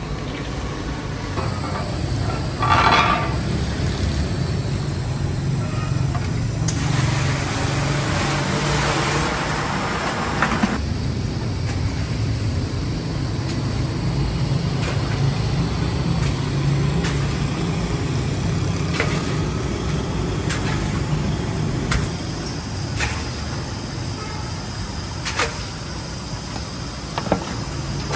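Steady low rumble of a large gas burner firing under a steel cooking pot. About a quarter of the way in there are roughly four seconds of hiss, and sharp clicks and knocks are scattered through the last third as the raw meat is handled.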